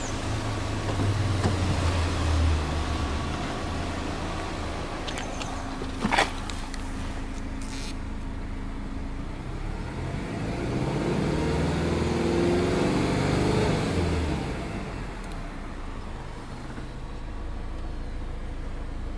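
Subaru Legacy 2.0GT's EJ20 turbocharged flat-four engine idling at about 1,000 rpm. The engine note swells and rises for a few seconds past the middle, then settles back to idle, and a single sharp knock sounds about six seconds in.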